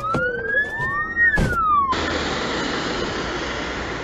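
Siren wailing, its pitch sweeping up and then falling, with a sharp click about one and a half seconds in. At about two seconds it cuts off abruptly into a steady hiss of noise.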